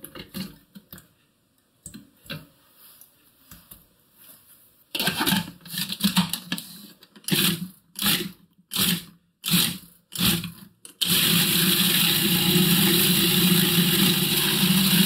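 Electric food processor chopping soaked dates: the motor is pulsed in about half a dozen short bursts, then runs continuously for the last few seconds as the dates are worked into a sticky paste. Before the pulsing there are only a few faint knocks as the dates go into the bowl.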